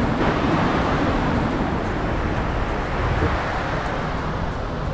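Steady rushing of water spray falling back onto the lake as the Dubai Fountain's jets die down at the end of a show, slowly fading.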